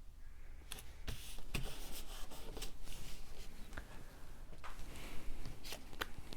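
Cardstock and paper pieces being handled and pressed into place: rustling and rubbing, with several sharp light clicks.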